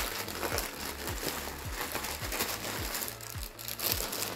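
Rustling and crinkling of an ultralight nylon backpack as it is pressed and handled by hand, with its contents shifting inside. Under it runs background music with a steady low beat about twice a second.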